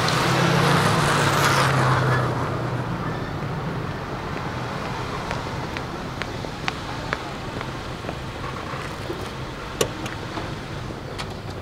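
A car driving away: engine and tyre noise loud for the first two seconds or so, then fading out. After that comes a quieter steady street background with a few light clicks.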